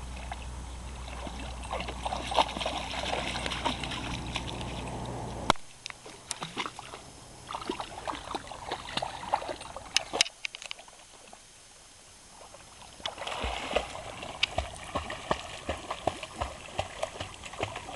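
Puppy paddling and splashing through shallow lake water, with sloshing and repeated splashes from its strokes that come in a quick, even run from about two-thirds of the way in. A steady low rumble underlies the first few seconds and stops suddenly.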